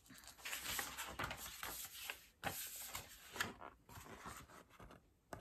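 Quiet rustling of a picture book's paper pages being turned and handled, with soft scrapes and light knocks, then a single sharp tap near the end.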